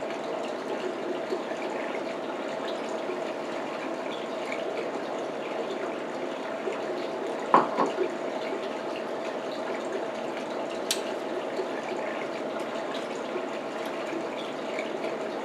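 A steady rushing background noise with a few faint clicks. About seven and a half seconds in, a short, louder cluster of sounds comes as a piece of king crab meat is eaten.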